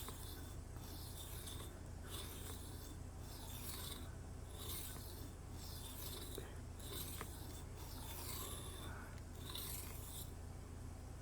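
Steel tanto blade of a Cold Steel Kobun knife being stroked across a whetstone to sharpen it: repeated rasping scrapes, about one a second, with a steady low hum underneath.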